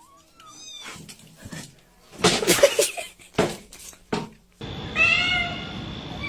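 Domestic cats meowing in short bending calls, with a loud harsh stretch about two seconds in; after an abrupt change of background, another cat meows over steady noise.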